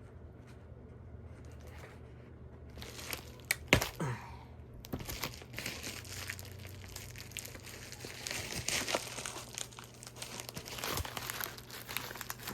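Plastic packaging wrap being crinkled and torn off by hand while unwrapping a boxed radio, quiet at first, with a sharp click a few seconds in, then dense crinkling through the rest.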